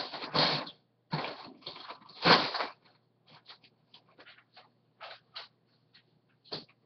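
Loose plastic Lego pieces being handled and rummaged. Three loud rustling clatters come in the first three seconds, then scattered small clicks and short rustles.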